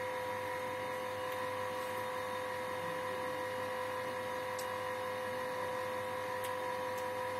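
Steady electrical hum with an even, unchanging whine, and two faint clicks in the second half.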